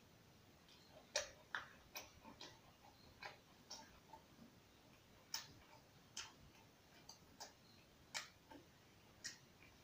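Eating sounds from rice eaten by hand off a banana leaf: scattered short, sharp clicks and smacks, irregular, about one a second.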